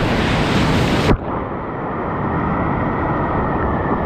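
Loud rush of whitewater rapids. About a second in it suddenly turns duller and quieter, its hiss cut off.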